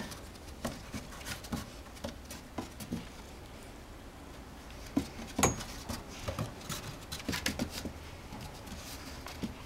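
Scattered light taps and scuffles of a Norrbottenspets puppy's and a cat's paws and claws on wooden deck boards as they play-wrestle, with two sharper knocks about five seconds in.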